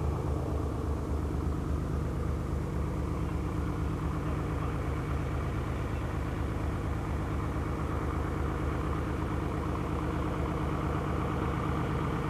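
A light aircraft's piston engine running steadily with a low, even drone.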